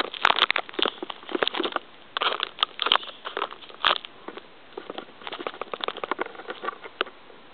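Handling noise from fingers on a small handheld camera: irregular crackling rubs, scrapes and taps on the casing right at the microphone, with a few sharper knocks.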